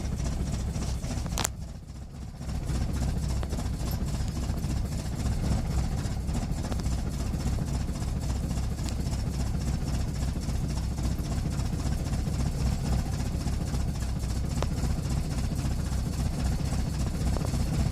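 Vehicle engine idling roughly, its low running uneven. About a second and a half in there is a click and the level dips briefly before the idle settles back.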